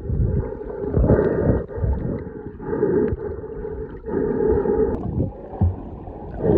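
Muffled underwater water sound, with gurgling surges about every second and a half.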